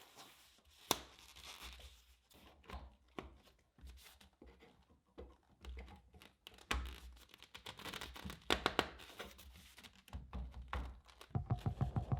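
Hand work on building materials: scattered knocks and clicks with rustling, crinkling and tearing sounds between them. Music comes in near the end.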